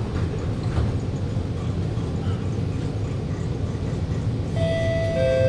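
Inside an Alstom Movia R151 metro car standing with its doors shut: a steady low rumble. Near the end a steady pitched whine comes in, then a second, lower tone, which is the traction motors powering up as the train starts to pull away.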